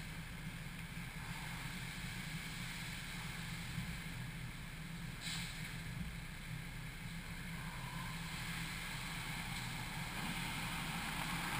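Steady low mechanical hum inside a touchless car wash bay, heard from a roof-mounted GoPro, with a brief hiss about five seconds in.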